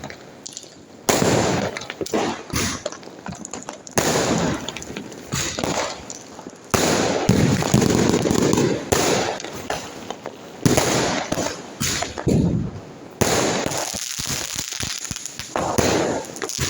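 Firecrackers and fireworks going off in a rapid series: sharp bangs every one to three seconds, each trailing off in crackling.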